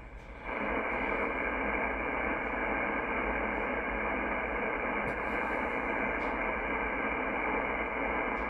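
Yaesu FTdx10 transceiver's speaker giving a steady hiss of shortwave band noise in upper sideband as the dial is tuned up from 15.016 MHz, with no clear signal coming through. The hiss jumps up about half a second in as the volume is turned up.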